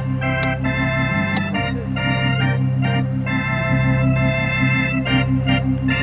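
Organ music: held chords that change every second or so, over a steady bass and a short low note repeating several times a second.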